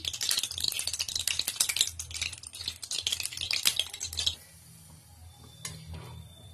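Hot oil crackling and sputtering as a burger bun fries in a kadhai. The crackle drops away sharply about four seconds in, and a single click follows a little later.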